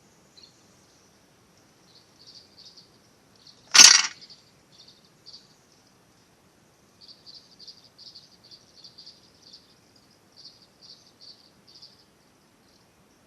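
Runs of short, high-pitched chirps from a small animal, coming in irregular clusters. One short, loud noise cuts in about four seconds in.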